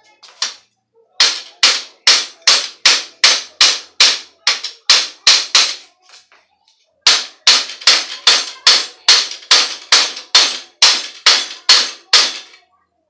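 Hammer striking metal at the head tube and fork of a steel bicycle frame, about three sharp, ringing blows a second. There are two runs of a dozen or more blows with a short pause between them, knocking the front fork loose so it can be removed.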